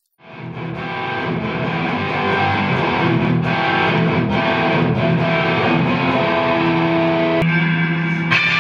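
Rock music led by distorted electric guitar, fading in from silence at the start. The sound changes abruptly about seven and a half seconds in and again near the end.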